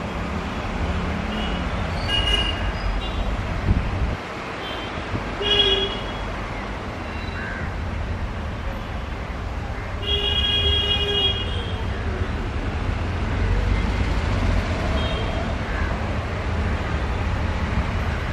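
Low rumble of an approaching Vande Bharat electric train set, with three horn toots about two, five and ten seconds in, the last one the longest.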